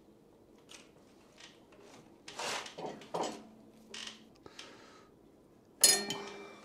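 Locking pliers working at a steel pin in a lathe's brake bell crank: scattered metal-on-metal scrapes and clicks with a couple of short squeaks, then a sharp metallic clank that rings on briefly near the end.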